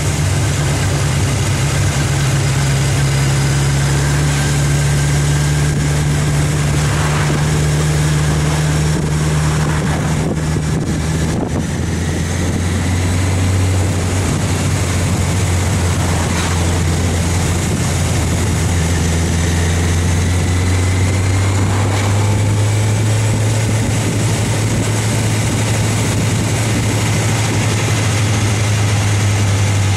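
A vehicle's engine drones steadily while driving, over a haze of road and wind noise. About eleven seconds in, its note drops to a lower pitch and holds there.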